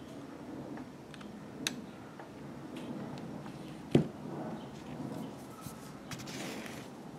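Light handling clicks of needle-nose pliers and a metal sewing-machine bobbin being worked out of a PVC pipe, then one sharp knock about four seconds in as the bobbin comes down on a fibreboard.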